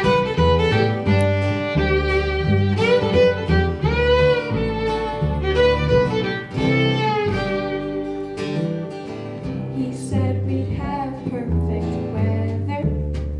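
Acoustic band playing a song's instrumental intro live: a fiddle carries the melody over strummed acoustic guitar and upright bass.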